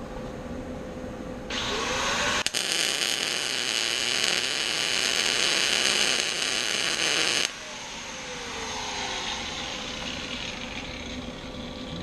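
Welding arc hissing steadily for about six seconds: it strikes about a second and a half in, breaks off for a moment, restarts, then cuts off suddenly. A steady background hum runs under it.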